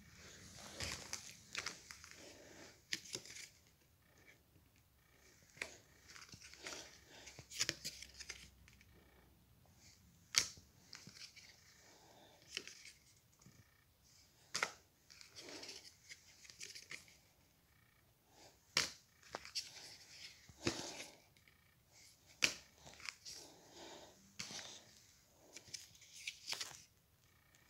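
One Piece Card Game trading cards being handled and flipped through by hand: dry rustling of card stock broken by sharp flicks and snaps, a handful of them louder than the rest.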